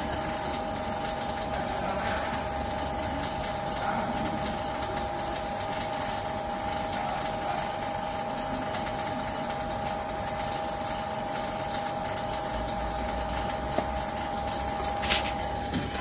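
Refrigeration vacuum pump running steadily with an even hum, evacuating a refrigerator's sealed system before gas charging. A sharp click sounds near the end as the phone is handled.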